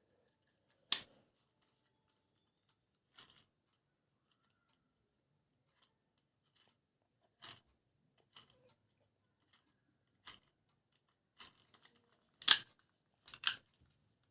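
A scattering of short, sharp plastic clicks and snips from handling a toy and its packaging, about nine in all at uneven gaps. The loudest come about a second in and near the end, and the last two fall close together.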